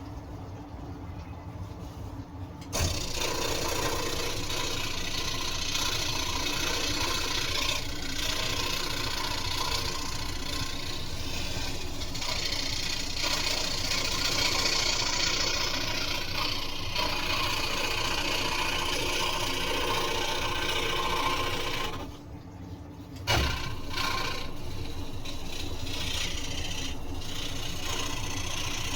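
Scroll saw cutting wood for an inside cut, a steady mechanical run of the reciprocating blade. It starts up about three seconds in, stops for about a second two-thirds of the way through, then starts again.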